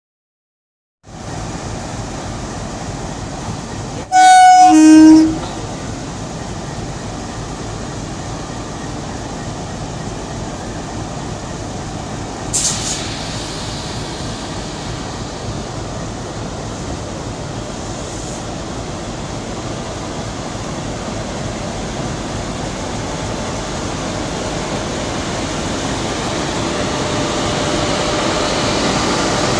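An express train passing at speed, with a steady rumble and rattle of wheels on the track that slowly grows louder. About three seconds after the sound cuts in, a locomotive horn blows a loud, short two-note blast, the second note lower than the first.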